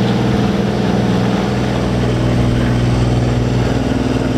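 Sailboat's inboard auxiliary engine running steadily under way while motor sailing, turning about 2,300 rpm: an even, low drone over a constant hiss.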